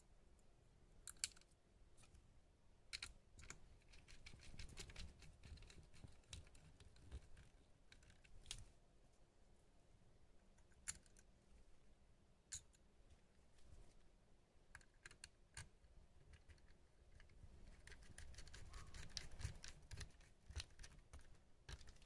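Faint, scattered metallic clicks and scrapes of a small screwdriver working the CPU heatsink screws on a laptop motherboard, with a quicker run of clicks near the end.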